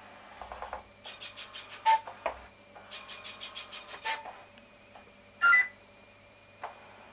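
Small homemade obstacle-avoiding robot rover moving about on carpet. Its mechanism makes two bursts of rapid ticking, about eight ticks a second, each ending in a short tone. About five and a half seconds in there is one loud, short chirp that rises in pitch.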